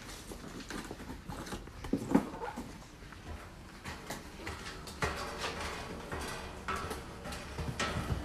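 Footsteps on a metal staircase with perforated steel treads: irregular light knocks and clanks as people walk up the steps.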